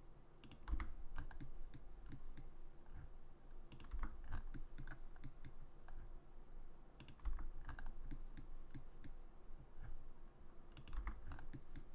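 Irregular clicking of a computer keyboard and mouse, scattered keystrokes and clicks with a few duller, heavier taps every three to four seconds.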